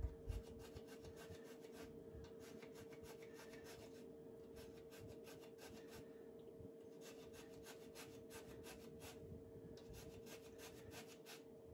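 Lemon being zested on a rasp grater: faint, repeated scraping strokes of the rind against the blade.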